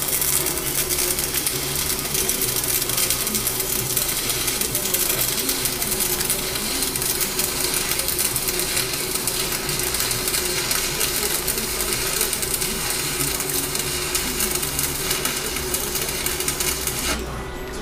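Stick (MMA) welding arc from a small inverter welder, crackling steadily as the electrode burns onto mild steel, then cutting off about a second before the end as the arc is broken.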